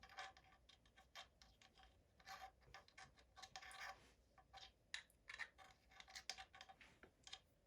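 Faint scraping and light clicks of the AR-15's magazine catch bar being slid back into the lower receiver by hand, metal rubbing on metal.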